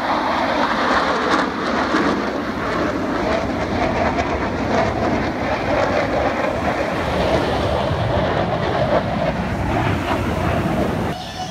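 Military jet aircraft in formation flying overhead: a loud, steady rushing jet-engine noise that drops off suddenly near the end.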